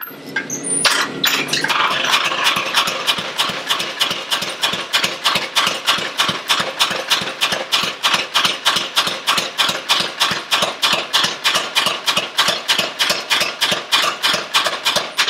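Shop-built mechanical power hammer, with a friction-belt drive, a flywheel and homemade steel bow springs, striking hot steel in a steady rhythm of about three to four blows a second over the hum of its motor and belt. The blows start irregular for the first second or two, then settle into the even beat.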